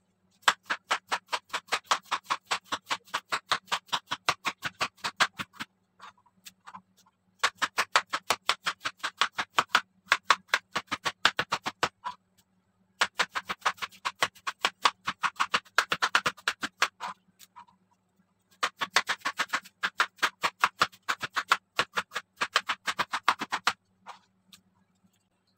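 Kitchen knife rapidly slicing bitter gourd into thin rounds on a plastic cutting board: quick, even taps several times a second. The taps come in four runs of about five seconds each, with short pauses between them.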